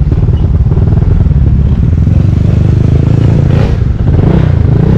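Honda LEAD125 scooter's single-cylinder engine running on the move, with heavy, rumbling wind and road noise on the microphone. About three and a half seconds in, another motorcycle passes close by, swelling and fading.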